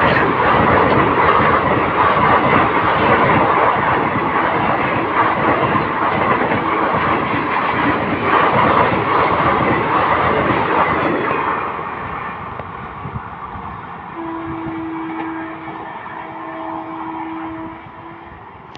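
Kolkata suburban electric local train passing at speed, its wheels clattering over the rail joints, loud for about eleven seconds before the noise drops away. A train horn sounds for about three seconds near the end, broken briefly in the middle.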